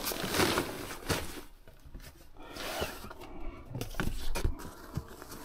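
Nylon fabric rustling and a stiff sheet scraping as it is slid into a sleeve of a dog back-seat cover, with a few light knocks of handling.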